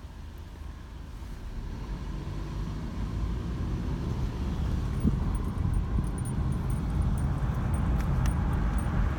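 Car engine and road noise heard from inside the vehicle, growing steadily louder as it picks up speed.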